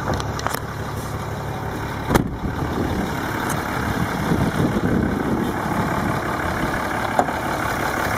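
2007 Dodge Ram 2500's 6.7-litre Cummins inline-six turbo diesel idling steadily, heard from outside the truck, with one sharp thump about two seconds in.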